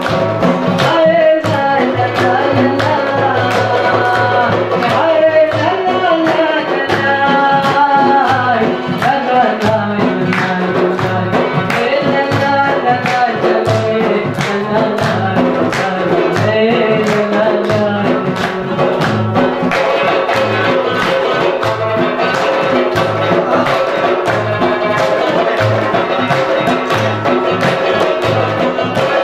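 Khowar (Chitrali) folk song: singing and melody over a steady percussive beat.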